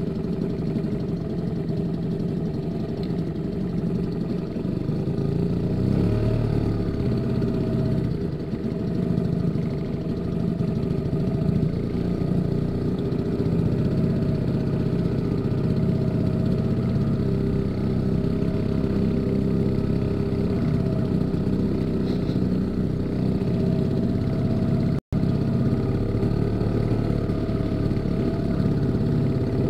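Small boat's outboard motor running steadily at low trolling speed, with a split-second dropout near the end.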